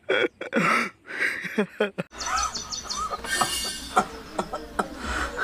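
A man's strained gasps and groans in short bursts for about two seconds. Then the sound cuts to outdoor ambience: a steady low hum with birds chirping, including a quick run of four high chirps.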